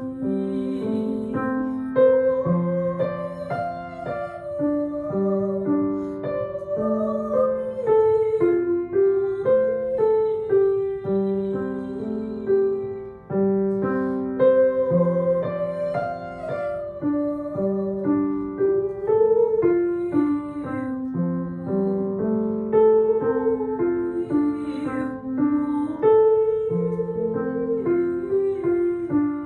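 Piano playing a slow melody over held chords.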